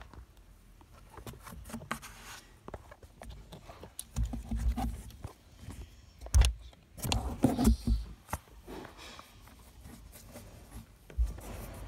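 Close rubbing, scraping and bumping noises at the phone's microphone as a kitten moves against it, mixed with a few sharp clicks. The loudest bumps come about four seconds in, again at six and a half, and from seven to eight seconds.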